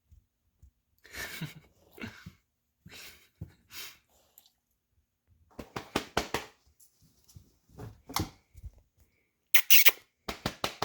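A dog making a series of short, irregular noises at close range, the loudest coming near the end.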